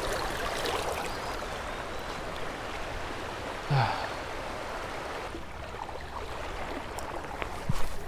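Creek water running steadily. About halfway through there is a brief grunt falling in pitch, and near the end a single sharp knock.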